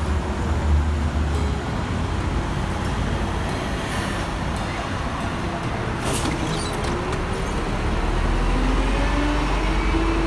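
Busy road traffic and city buses running at a bus stop: a steady roar of engines and tyres with a low rumble. Near the end a rising whine comes in as a bus moves off close by.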